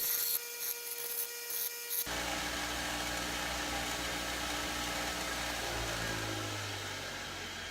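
Powered grinding wheel grinding a steel knife blank, the high-pitched grinding coming and going in short bursts over the steady motor tone. About two seconds in the sound changes abruptly to a steadier, fuller motor running that slows and winds down in pitch near the end.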